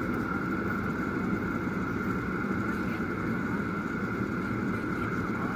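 Jet airliner cabin noise during descent on approach: a steady rush of engine and airflow sound from inside the cabin, with a constant high whine over it.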